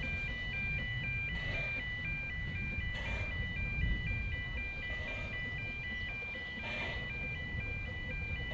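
Electronic two-tone warning alarm, typical of a railway level crossing, with its pitch flipping back and forth about four times a second. Beneath it is a steady low rumble and a soft burst of noise every couple of seconds.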